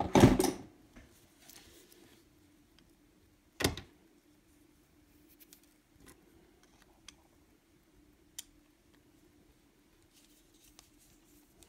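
Handling noises of a screwdriver working the truck screws out of a small metal model-locomotive chassis: a loud clatter at the start, a sharp knock about three and a half seconds in, then a few faint ticks.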